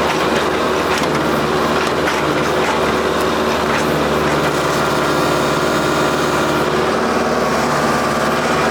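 New Holland WorkMaster 55 tractor's diesel engine running steadily under work, with a few faint short knocks over it.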